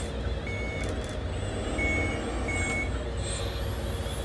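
Reversing alarm on a radio-controlled construction model: three short high beeps about a second apart, over a steady low rumble.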